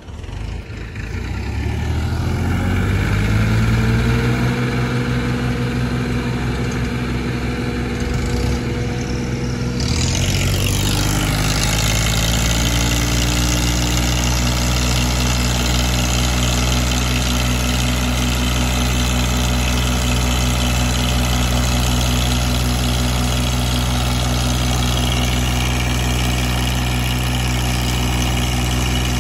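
Massey Ferguson 1035's three-cylinder diesel engine revving up over the first few seconds and running hard under load, pulling a fully loaded trailer. About ten seconds in it gets louder and harsher and the revs climb again, then it holds a steady pitch.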